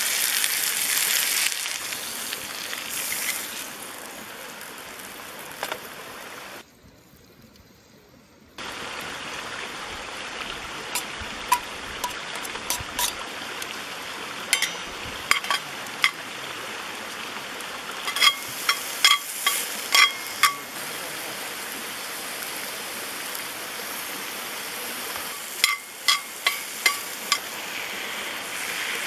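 Steak, then sliced mushrooms, sizzling in a Turk forged-iron frying pan, a steady hiss. From about a third of the way in, metal tongs clink against the pan in several short runs of ringing taps.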